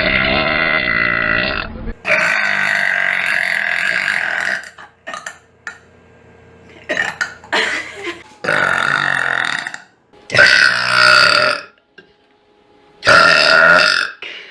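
A woman burping loudly, one long drawn-out burp after another, with a few short ones in between.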